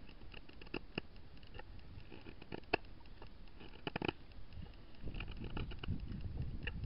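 Knife carving a kuksa from hard, dry oak burl: short scraping cuts and clicks at irregular intervals as shavings come off, with a quick cluster of cuts about four seconds in.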